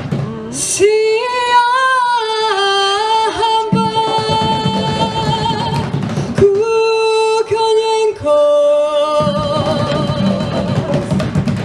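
Amplified girl's solo voice singing long held notes through a PA, in a choir song with an accompaniment. The accompaniment drops away for a few seconds near the start, comes back, drops out again about six seconds in, and returns near the end.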